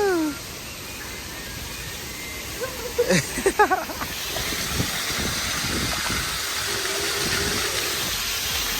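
Wind rushing over a phone microphone, with road noise, while riding an electric rental scooter; the rush grows louder about four seconds in. There is a brief burst of short sliding high-pitched sounds about three seconds in.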